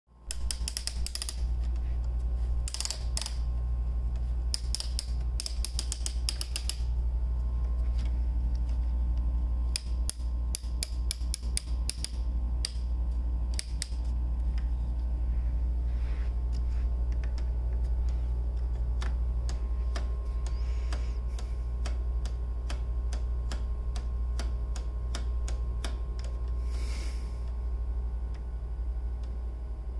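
Wooden mechanism of a UGEARS Aero Clock, a plywood pendulum clock, clicking: dense clusters of sharp wooden clicks in the first several seconds and again around the middle as the gears are handled, then spaced escapement ticks, about one or two a second. A steady low hum runs underneath.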